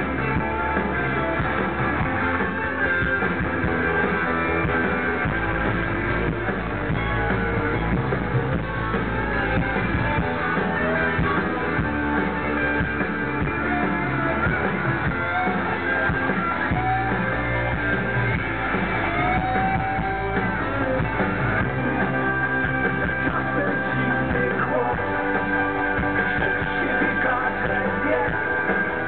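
Live rock band playing a song: electric guitar, bass and drums with some singing, steady and loud.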